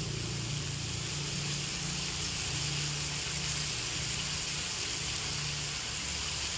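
Chicken pieces frying in fat in a cast iron skillet: a steady sizzle, with a steady low hum underneath.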